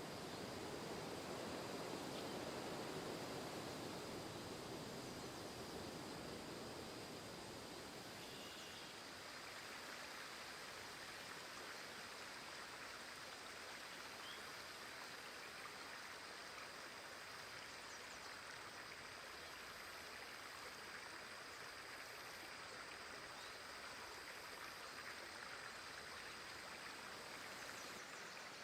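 Steady rushing noise like flowing water, fuller and lower for the first few seconds, then even and hissier. A faint high steady tone runs through it.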